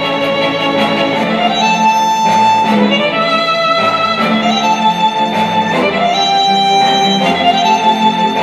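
Cinematic classical instrumental with a violin melody of held notes over a steady accompaniment, played through a Star Wars Millennium Falcon Bluetooth speaker.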